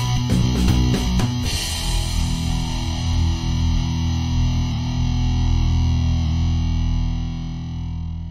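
Background rock music with distorted electric guitar: choppy rhythmic strumming for about the first second and a half, then one long held chord.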